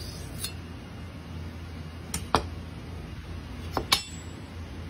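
A few sharp metallic clicks of a stainless-steel knife blade touching the whetstone, coming in two quick pairs a little over two seconds in and near four seconds, over a low steady hum; no grinding strokes are heard.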